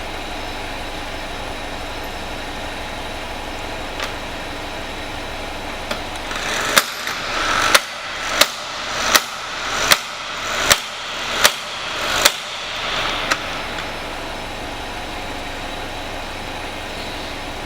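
12-volt electric impact wrench running under load, hammering out about eight sharp impacts roughly three-quarters of a second apart, each preceded by the motor winding up, over a steady background hum.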